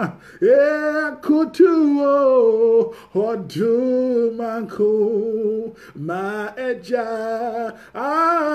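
A single woman's voice singing a worship song unaccompanied, in short phrases of held notes with a wavering vibrato.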